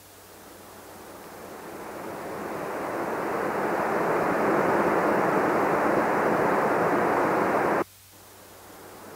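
Mid-frequency band of test noise, 300 Hz to 2 kHz, from a Dolby Stereo listening test film for checking loudspeakers, cross-overs and power amplifiers. It plays through the left screen channel, fading up over about four seconds and holding steady, then cuts off suddenly near the end. It then begins fading up again through the centre channel.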